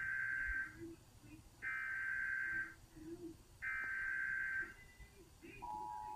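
Emergency Alert System SAME header from a television's speaker: three one-second bursts of warbling data tones about two seconds apart, then the steady two-tone attention signal begins near the end, announcing a severe thunderstorm warning.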